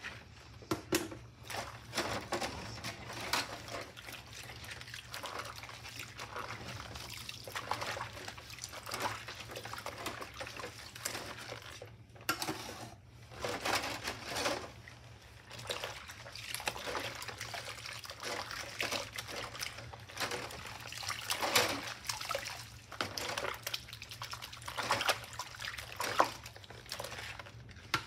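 Soapy dishwater sloshing and splashing in a stainless steel sink as rubber-gloved hands scrub dishes with a sponge under the suds, in irregular swishes.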